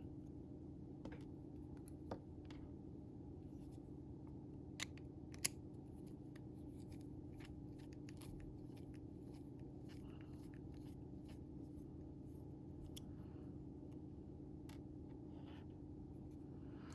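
Scattered faint clicks and taps of small metal knife parts being handled while an Ontario RAT 1 folding knife is taken apart, with two sharper clicks about five seconds in. A steady low hum lies underneath.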